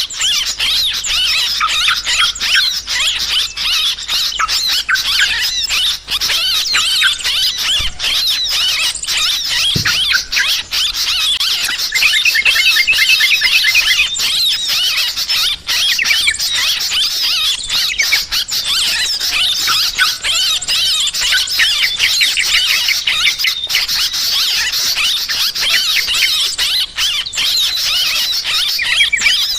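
Dense, unbroken chorus of yellow-vented bulbuls (trucukan) giving noisy, agitated chattering calls, with many small birds chirping over them. This is the excited 'ribut' calling used in recordings to lure birds to a trap.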